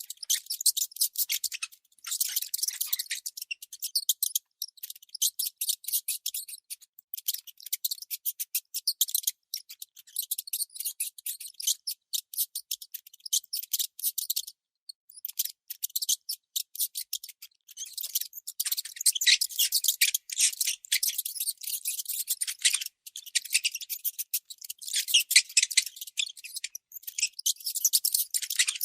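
Baby mouse squeaking: rapid, high-pitched chirps in dense runs, broken by a few short pauses.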